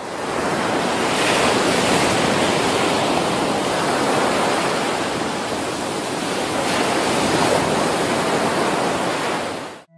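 Ocean surf: a steady rush of breaking waves that swells and eases gently, then cuts off abruptly near the end.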